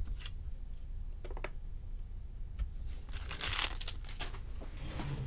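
A brief crinkling rustle of handled packaging or paper about three seconds in, after a few light clicks and taps.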